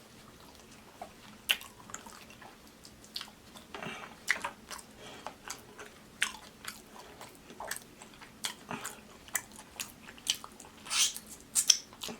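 A person chewing and eating oxtail close to the microphone, with irregular wet mouth clicks and lip smacks, louder and more frequent near the end.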